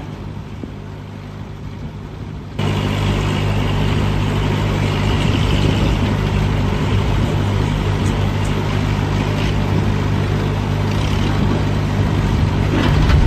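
A heavy machine's engine running steadily with a low hum. It becomes abruptly louder and noisier about two and a half seconds in.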